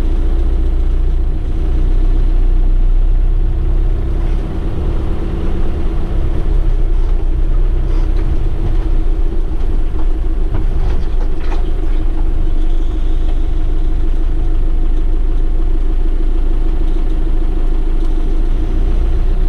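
Off-road vehicle engine idling steadily, with a constant hum over a low rumble and a few light knocks about eight to twelve seconds in.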